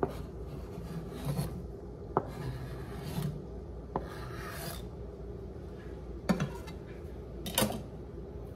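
Short rasping scrapes and sharp taps of a kitchen utensil, several times, as cut potatoes are pushed into a pan of hot frying oil.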